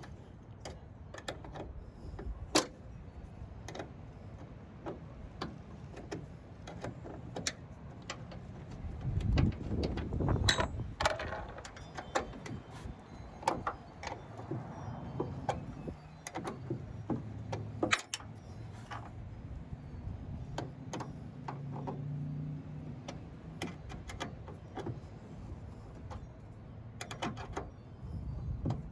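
Irregular clicks, taps and metallic knocks of a hand wrench and small bolts being worked and handled around a pickup truck's tail light. Now and then a sharper knock, with a stretch of heavier handling and rustling about ten seconds in.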